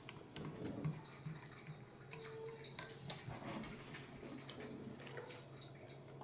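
Faint, scattered light clicks and taps of utensils against a dish, over a low steady hum.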